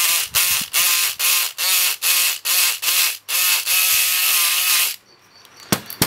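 Electric lock pick gun buzzing in about ten short bursts and then one longer run as it rattles the pins of a brass euro cylinder to pick it. It is noisy, each burst starting with a brief rising whine, and it stops about five seconds in.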